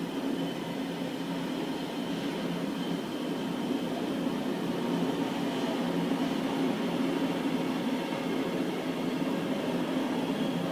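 Freight train of tank wagons passing at speed: steel wheels rolling on the rails in a steady, continuous noise that grows slightly louder.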